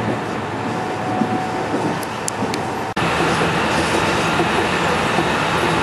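Cabin of a JR West 207 series commuter train running at speed: a steady rumble of wheels on rail and running noise. About three seconds in, the sound cuts out for an instant and comes back a little louder.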